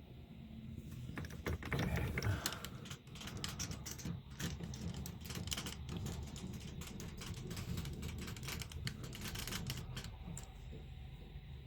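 Lathe face milling a copper bolt: dense, irregular metallic clicking and clattering over the low steady hum of the machine, stopping near the end.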